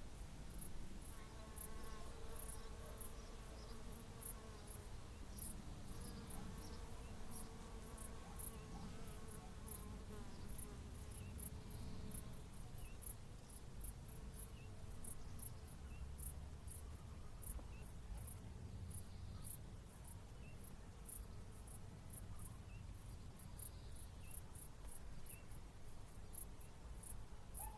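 Hedgerow insect ambience: very high, short insect chirps repeating about twice a second, with a buzzing fly or bee droning in the first ten seconds or so, over a low background rumble.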